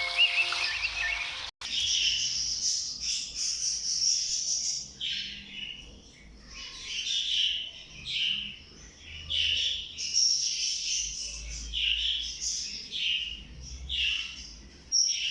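Pet budgerigars chattering and warbling in a quick, continuous stream of chirps and trills, cut off briefly about a second and a half in.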